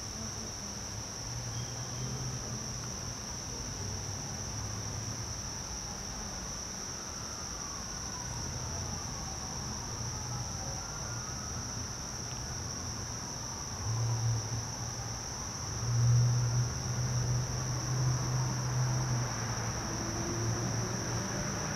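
Crickets chirring steadily, a continuous high-pitched insect drone, with a low hum underneath that grows louder in the second half.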